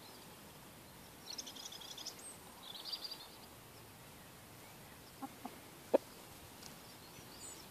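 Faint high bird chirps in two short bursts in the first few seconds, then three sharp clicks close together about five to six seconds in, the last one the loudest.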